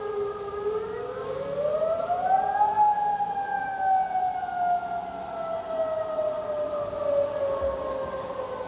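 A recording of the Mount Rainier volcano warning siren wailing. Its pitch rises over about two seconds, then sinks slowly through the rest.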